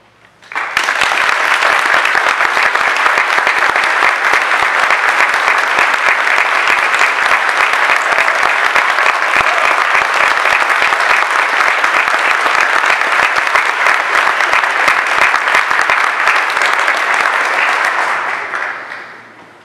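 Audience applauding. The applause breaks out about half a second in, holds steady, and dies away near the end.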